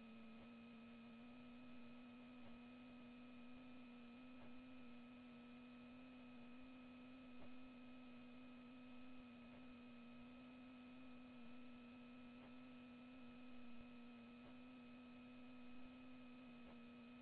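Faint steady electrical hum with a few higher steady tones above it, unchanging throughout, with a few faint ticks.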